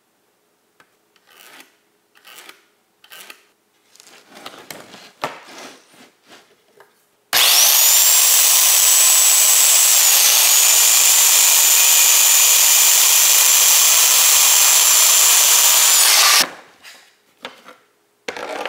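A few light knocks and rustles as the board and speed square are set up, then a circular saw runs for about nine seconds crosscutting a hardwood pallet board, its high whine dipping briefly as the blade bites into the wood, before it winds down and a few clunks follow.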